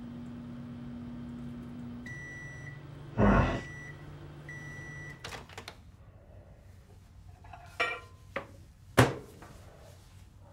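A microwave oven hums as it runs, stops, and beeps three times to end its cycle, with a short loud burst of noise just after the first beep. Its door then clicks open, and a few sharp clunks follow near the end as it is handled.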